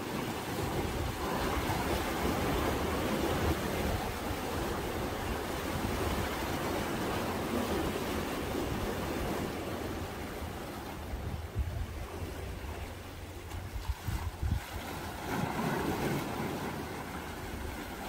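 Sea waves washing against shoreline rocks, with wind buffeting the microphone in gusts.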